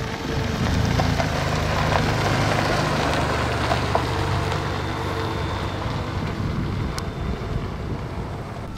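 A car passing close by on a gravel road: its engine running and its tyres on the loose gravel, loudest a second or two in, then slowly fading away.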